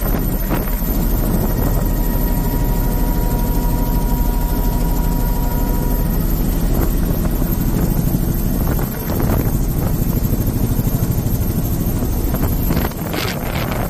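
Helicopter in flight: steady rotor and engine noise heard from the open, doors-off cabin, with wind rushing over the microphone.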